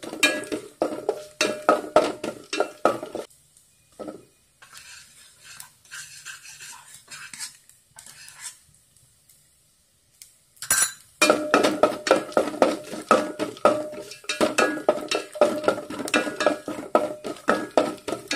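Wooden spatula stirring coconut pieces and cashews frying in ghee in an aluminium pan: quick scraping and clinking against the metal, which rings. The stirring stops a few seconds in, leaving only faint sounds, and starts again after about eight seconds.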